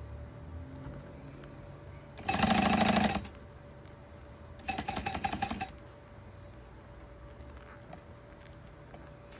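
Juki walking-foot industrial sewing machine stitching in two short runs of rapid, even strokes, the first about two seconds in and the second, a little quieter, about five seconds in. A faint steady hum runs between them.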